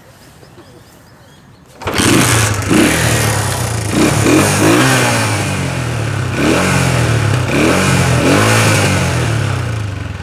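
Honda CG 125's single-cylinder four-stroke engine, which starts suddenly about two seconds in and is then revved up and down repeatedly, with a little less level near the end.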